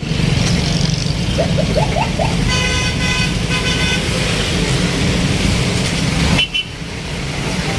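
Road traffic with a steady low engine rumble, and a vehicle horn honking twice, about two and a half seconds in and again a second later.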